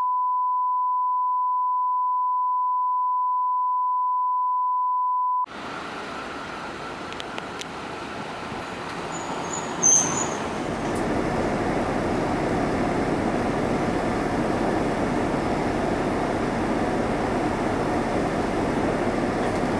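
A steady 1 kHz test tone for about five seconds that cuts off sharply, then the cabin running noise of a 2002 Isuzu Erga KL-LV280L1 non-step city bus. About ten seconds in a brief high-pitched squeak sounds, and just after it the engine and road noise grows fuller and then holds steady.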